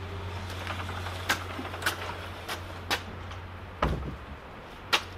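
Motocross bike being pushed by hand and parked, engine off: scattered clicks and knocks, with a heavier thump about four seconds in, over a steady low hum.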